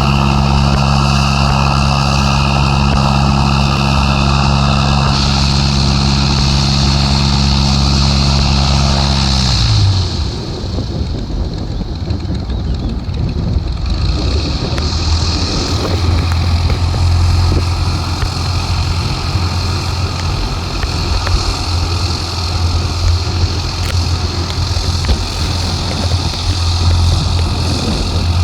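Ikarus C42 microlight's propeller engine under power as it departs. It runs with a steady, even tone, then about ten seconds in the pitch drops and the sound turns into a rougher, noisier drone.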